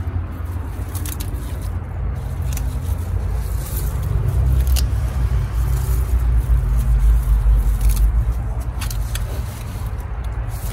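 Uneven low rumble of wind buffeting the microphone, louder through the middle, with faint rustles and snaps of lettuce leaves being picked by gloved hands.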